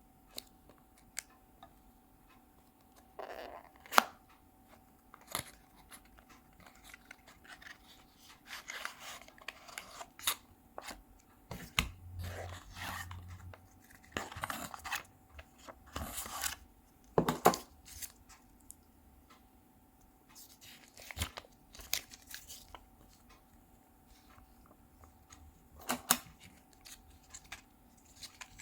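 Box and packaging being handled: scattered clicks and taps with short stretches of rustling and tearing.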